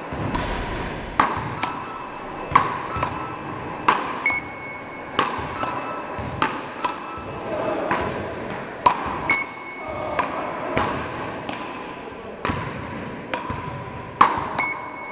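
Beach-racket (ρακέτες) rally: the ball cracks sharply off the paddles about every second and a half, each hit echoing in a large sports hall. Short electronic beeps from a hit-measuring scoring device sound between hits.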